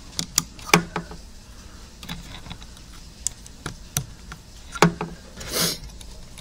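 Scattered sharp clicks and taps of a small circuit board being handled and pressed onto its new standoffs, with a short rustle near the end.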